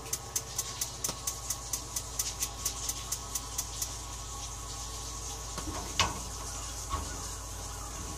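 Battery spark igniter of a propane tankless water heater clicking rapidly, about four clicks a second, then stopping about four seconds in without the burner lighting. A steady hiss runs underneath, with a knock near six seconds and a lighter one near seven.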